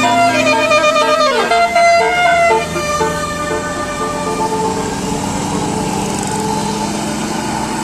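A bus's Basuri 'telolet' multi-tone air horn plays a quick melody of short stepped notes with one falling slide, stopping about two and a half seconds in. A steady vehicle rumble follows.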